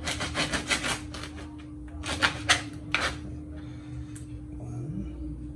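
A knife scraping along a whole mackerel on a plastic cutting board: quick rasping strokes several a second for about the first second, then a few louder single strokes two to three seconds in, then quieter.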